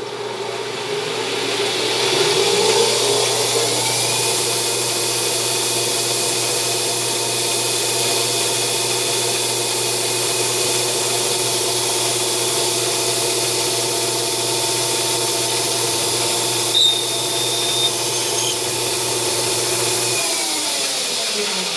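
Grizzly G0602 metal lathe spindle spinning up, with its whine rising in pitch over the first few seconds. It then runs steadily while the tool takes a finish pass in the bore of an aluminium part. Near the end the spindle winds down with a falling whine.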